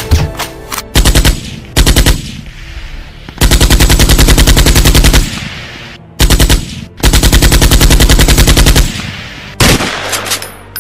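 Rapid automatic gunfire, about a dozen shots a second, in five bursts: two short bursts, two long bursts of nearly two seconds each, and another short one between them.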